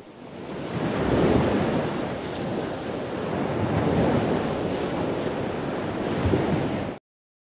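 Ocean surf washing: a steady rush that swells and eases, cutting off abruptly near the end.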